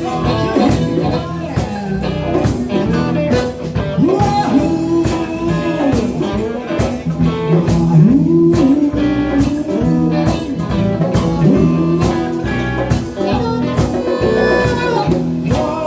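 Live blues band playing an instrumental stretch: electric guitar over bass and a drum kit keeping a steady beat, with bending, sliding notes.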